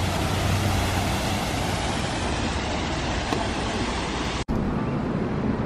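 Steady rushing outdoor background noise with a low hum under it. It cuts off abruptly about four and a half seconds in, and a quieter, duller steady noise follows.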